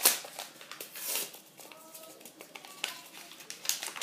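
Paper sachets of vanilla sugar crinkling as they are emptied over the bowl and set down: a few short, sharp rustles, the loudest right at the start.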